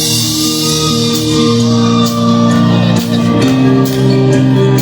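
Live band music with no singing: held chords over a bass line that change every second or so, with drum hits coming in about two seconds in.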